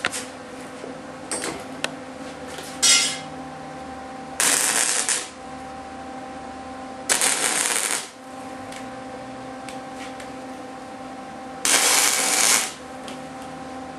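Wire-feed (MIG) welder laying short welds on a steel-rod figure: a brief burst of arc noise near three seconds in, then three bursts of about a second each, about four, seven and twelve seconds in, over a steady low hum.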